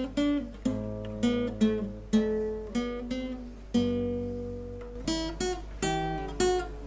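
Background music: acoustic guitar picking notes and chords, each struck sharply and left to ring out and fade.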